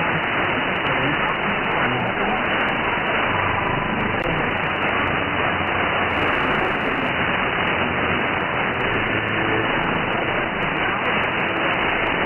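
Weak shortwave AM broadcast on 9765 kHz received through an RTL-SDR (R820T) dongle: steady hiss and static, with a faint voice barely audible beneath the noise.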